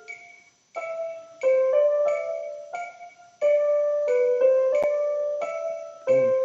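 Yamaha portable keyboard playing a slow melody of single held notes in a piano voice, moving step by step, over evenly spaced metronome clicks at about 90 beats a minute.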